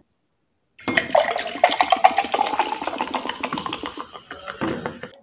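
Carbonated soft drink poured from a plastic bottle into a glass mug, splashing and fizzing as the mug fills with foam. It starts about a second in and tails off near the end.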